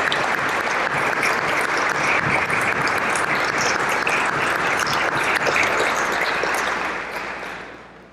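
An audience applauding: a dense, steady mass of hand clapping that dies away over about the last second.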